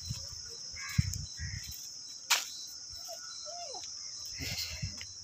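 Steady high-pitched drone of insects chirring, with a single sharp click about two seconds in and a few soft low thumps.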